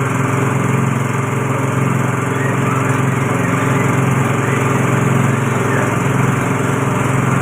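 Motorised coconut-milk press machine running at steady speed, a loud continuous engine-like drone.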